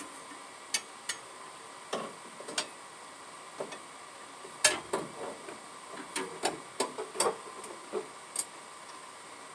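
Irregular clicks and knocks of tools and small parts being handled while a kickdown linkage is fitted: about fifteen short, sharp strikes spaced unevenly, the loudest about halfway through, over a faint steady hum.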